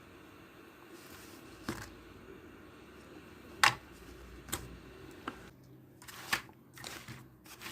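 A few scattered sharp clicks and taps of small tools or parts being handled on a workbench, the loudest about three and a half seconds in.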